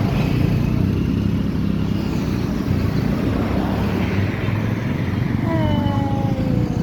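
A motor vehicle's engine running steadily and loud, with a falling tone about five and a half seconds in.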